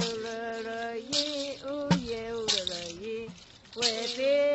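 A woman singing a Pemón chant in long held notes that glide gently between pitches, with a bamboo stamping tube thudding on the ground every second or so.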